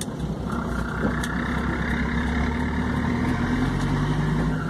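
Motor vehicle engine running steadily on the move, a low drone whose note shifts slightly about three and a half seconds in.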